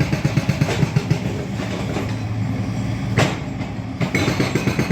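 Heavy demolition machinery working loudly, with a rapid, rhythmic pounding of about six beats a second. The pounding eases for a couple of seconds and then returns, with one sharp clank about three seconds in.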